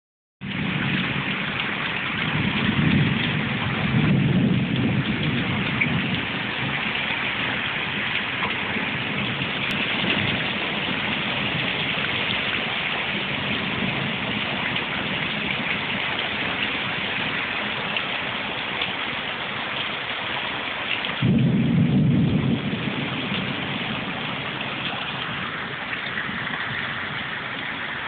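Torrential cloudburst rain pouring steadily onto paving and splashing, a dense hiss. Deep low rumbles swell up twice, about three seconds in and again about twenty-one seconds in.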